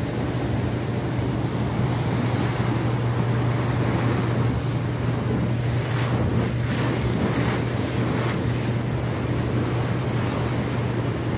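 A passenger boat's engine running with a steady low drone under the rush of churning water, with wind buffeting the microphone.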